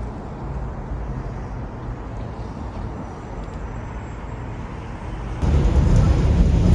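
Steady low rumble of a moving vehicle, which gets louder after an abrupt cut about five seconds in.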